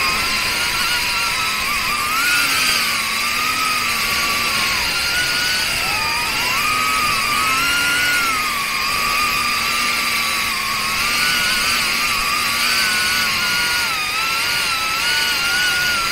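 Small FPV cinewhoop quadcopter on a Pavo30 ducted frame, its 3800 KV brushless motors and propellers whining in flight, recorded on the onboard camera. The whine rises and falls in pitch as the throttle changes.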